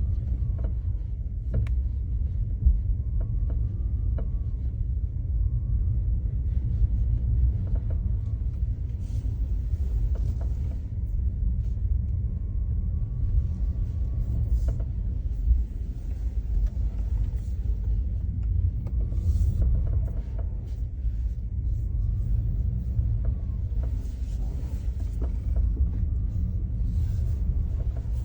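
Car cabin with a steady low road-and-engine rumble at low speed, and a faint creak recurring every few seconds as short squeaky tones that rise and fall in pitch, with scattered light clicks. The creaking comes with accelerating and decelerating at low speed.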